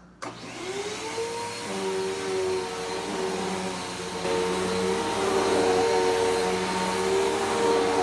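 Bissell Powerforce Helix Turbo upright vacuum cleaner switched on, its motor spinning up to a steady whine within about a second, then running as it is pushed over a fabric sheet, getting louder about four seconds in.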